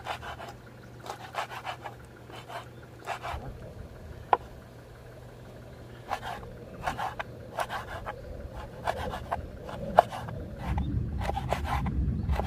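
Kitchen knife slicing raw fish fillet on a wooden cutting board: short knocks and scrapes of the blade through the flesh onto the board, a few strokes at a time, with a couple of sharper clicks. Near the end a low rumble comes up underneath.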